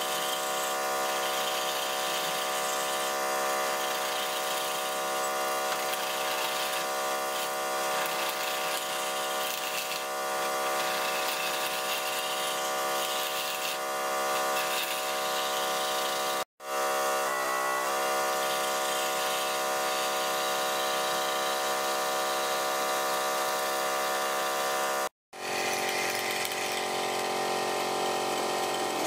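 Wood lathe running with a steady motor whine while a hand-held turning chisel cuts into the spinning wood blank, scraping off shavings. The sound cuts out briefly twice.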